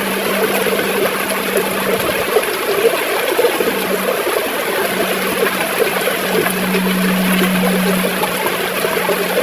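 River water gurgling and rushing steadily, with quick bubbling flickers. A steady low hum runs underneath and grows stronger around seven seconds in.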